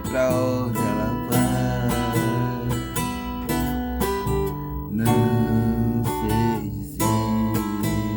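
Acoustic guitar strummed, playing a song.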